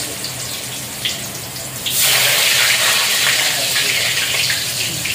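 White tofu dropped into hot oil in a wok, sizzling: a sudden loud hiss about two seconds in that carries on to the end.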